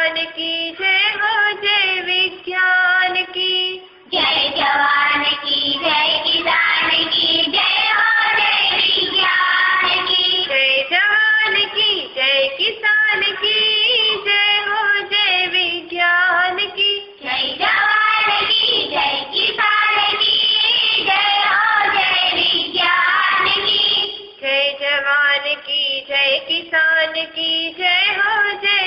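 A Hindi poem sung to a tune. A single lead voice sings at the start and again near the end, and a fuller, denser sound of several voices singing together fills the middle stretch.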